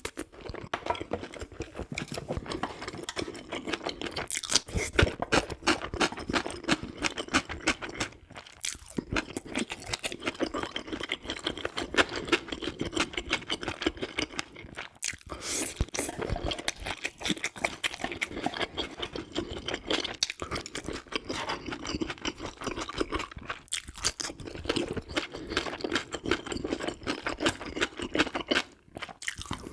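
Close-miked chewing: continuous wet mouth clicks and crunches, with a few sharper bites and brief pauses.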